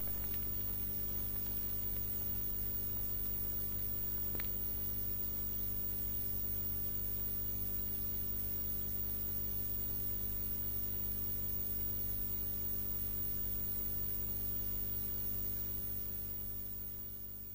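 Steady electrical mains hum with faint hiss, fading out near the end. A single faint click comes about four seconds in.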